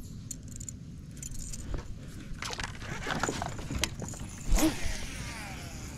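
Fishing tackle handled and cast from a kayak: a buzzbait and its metal blade rattling and clicking, with one louder knock about four and a half seconds in.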